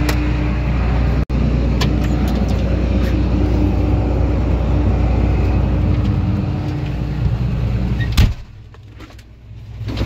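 A combine harvester running steadily, with a deep engine drone and a steady hum, as it is tried out after its slipping, worn knife-drive belt has been tightened. About eight seconds in there is a sharp knock, and the sound turns much quieter for nearly two seconds.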